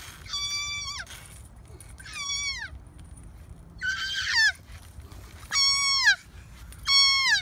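A young fawn crying in distress: five high-pitched bleats, each held briefly and then dropping in pitch at its end, as it is noosed with a catch pole and pulled out of a hole.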